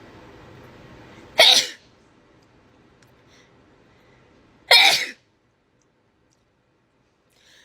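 A woman sneezes twice, about three seconds apart, each a short, loud burst. The sneezing is set off by a nasal swab pushed up her nostril during a COVID self-test.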